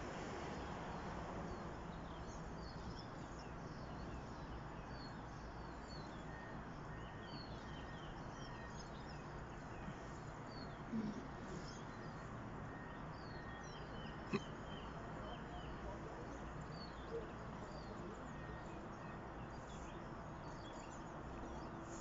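Small songbirds chirping faintly, short high calls scattered throughout over a steady outdoor background hum. A short low knock comes about eleven seconds in and a sharp click about three seconds later.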